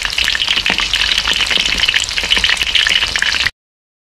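Vegetable tempura deep-frying in hot oil in a wok: a dense, loud sizzle full of fine crackles, cutting off abruptly about three and a half seconds in.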